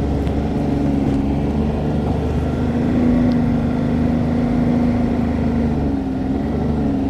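Ski-Doo Skandic snowmobile engine running steadily under load in low range, its pitch rising a little about three seconds in and easing off near the end.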